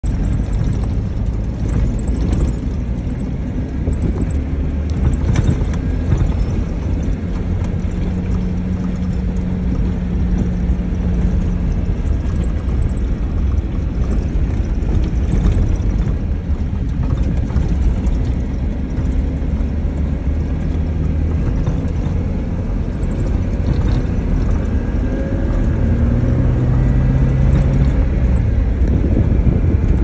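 Inside a car driving over desert sand: a steady low rumble from engine and tyres, with an engine hum that comes and goes in pitch and a few light knocks from the body.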